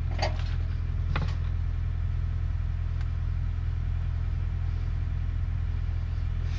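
An engine idling with a steady low rumble. Two short clicks and rattles, about a quarter second and a second in, come from parts and wiring being handled at the blower housing.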